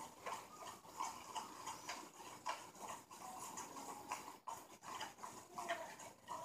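A plastic straw stirring a runny shampoo-and-toothpaste mix in a small plastic tub, making faint, irregular clicks and taps against the plastic. The mix has not yet started to thicken into slime.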